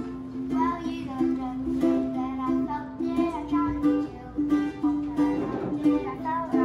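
Ukulele strummed in a steady rhythm, with a boy singing a melody over it from about half a second in.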